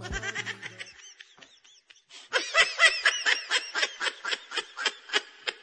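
A person laughing in a quick run of high-pitched giggles, starting about two seconds in.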